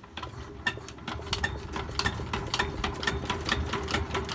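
Công nông tractor's motor running, with a steady hum and sharp ticks about three a second that get gradually louder.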